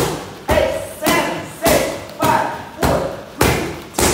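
Muay Thai roundhouse kicks smacking into Thai kick pads in a fast, steady series: eight sharp hits, about one every 0.6 s.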